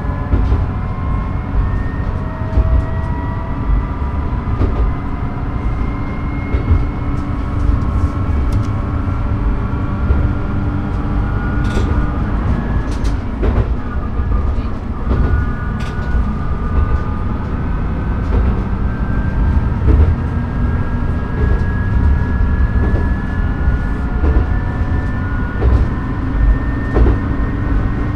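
Diesel railcar running along single track, heard from the cab: a steady low rumble of engine and wheels on rail, with a whine that climbs slowly in pitch and scattered sharp clicks from the rail joints.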